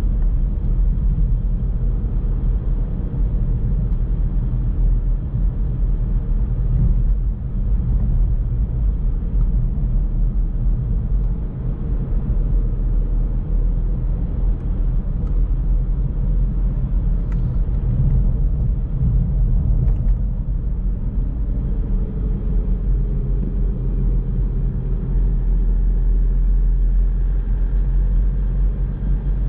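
Car driving steadily on a country road: a continuous low rumble of tyre and engine noise.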